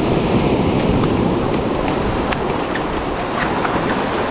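Surf washing in over a sandy beach, a steady rush of breaking waves and foaming swash, with wind buffeting the microphone and a few faint ticks.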